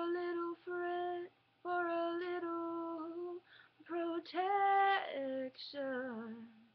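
A woman singing unaccompanied, in several phrases of long held notes with short breaks between them. Near the end the last phrase slides downward in pitch and stops.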